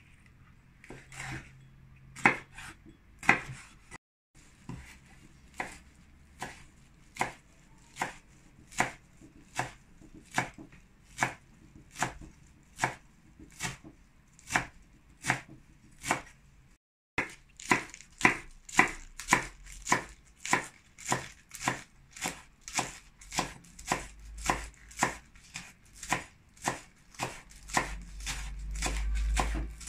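Kitchen knife chopping vegetables on a cutting board in steady, evenly spaced strokes, about one and a half a second at first and about two and a half a second in the second half, with two short gaps. A low rumble builds under the strokes near the end.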